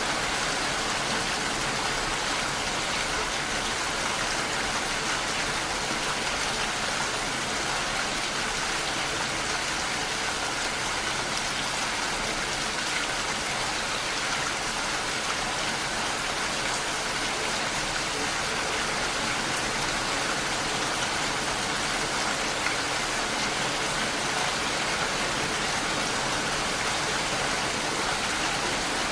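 Steady rain falling, an even hiss that holds at one level with no breaks or distinct drops standing out.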